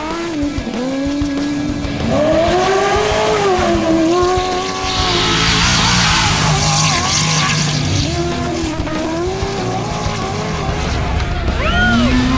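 Off-road trophy truck engine revving up and down repeatedly as it races over dirt, with a rushing hiss of sliding tires and spraying dirt about five to eight seconds in.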